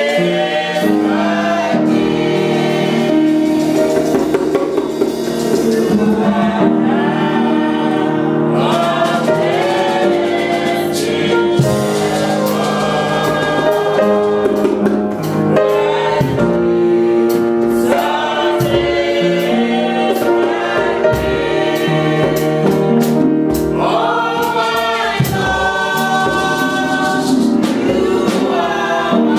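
A small group of women and men singing a gospel praise song together.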